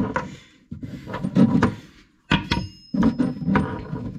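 Clicks, knocks and handling noise of a basin mixer tap's half-moon fixing bracket being fitted up onto the tap from under the worktop, around its braided flexi hoses. One sharp metal clink about two and a half seconds in rings on briefly.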